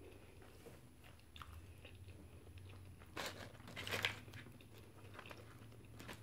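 Close-up chewing of a bite of a Big Mac burger, faint and wet, with two louder brief crackles about three and four seconds in.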